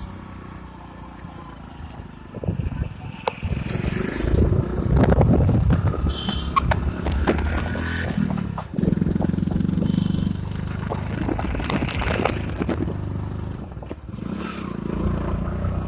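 Motorcycle engine running, with rough wind noise on the microphone and clattering handling knocks; it grows louder about two and a half seconds in.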